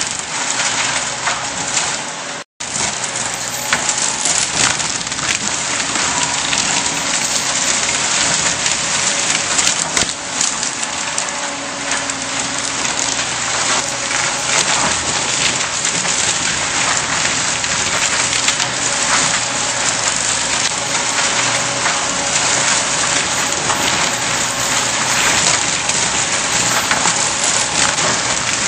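Forestry mulcher head on a tracked compact loader shredding brush and saplings: a steady, dense crackling hiss of wood being chewed up over a faint engine drone. The sound cuts out briefly about two and a half seconds in.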